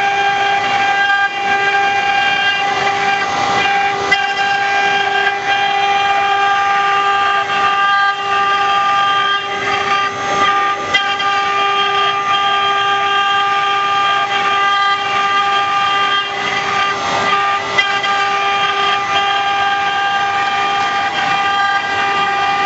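Four-axis CNC rotary engraving machine carving wood: its spindle gives a steady, unchanging high whine, over a haze of cutting noise with scattered faint ticks.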